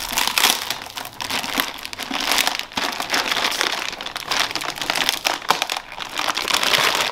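Thin clear plastic bag crinkling and rustling as it is pulled by hand off a turbocharger, in a dense, irregular crackle.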